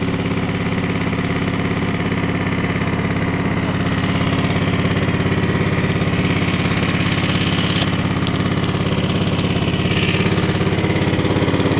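Small petrol engine driving a boat, running steadily at a constant speed.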